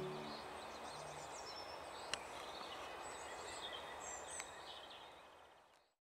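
Faint outdoor background hiss with small birds chirping high up, and two sharp clicks about two seconds and four and a half seconds in; everything fades out near the end.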